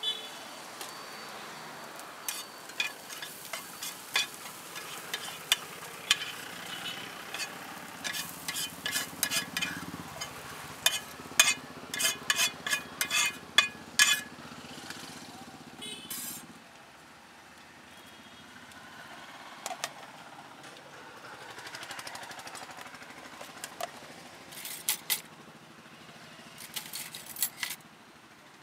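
Metal spatula scraping and clacking against a black iron griddle pan while food is scooped off it, over a low sizzle from the hot pan. The clacks come thick and fast in the middle, then die away, and a few lighter metal clinks on the plate follow near the end.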